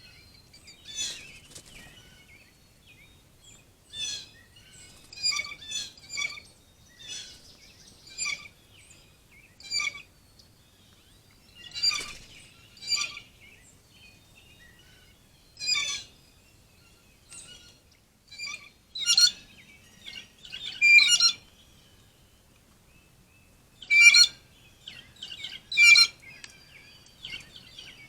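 Wild birds calling: short, sharp chirping calls that repeat every second or two, some in quick clusters of two or three notes.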